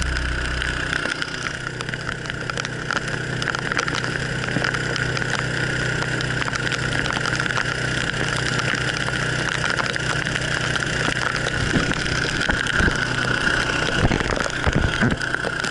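Small 5.5 hp petrol engine driving a boat's tiller-steered motor, running steadily under way, with water rushing past the hull. A few low thumps near the end.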